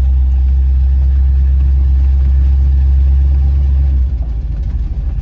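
Steady low drone of a 1976 Chevy K10's 350 small-block V8 and drivetrain, heard inside the cab while driving. About four seconds in, the drone gives way to a lower, choppier rumble.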